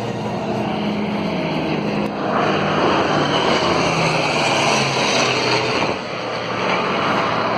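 Aircraft of a warbird-and-jet formation flying past, with the low tones of piston engines under the broad rush of jet and propeller noise. The noise swells about two seconds in and dips briefly near the end before coming back.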